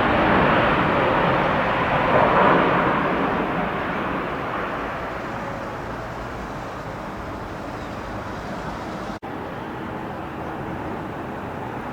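Jet airliner engine roar, loud at first and then fading over several seconds to a steady lower rumble as the aircraft moves away.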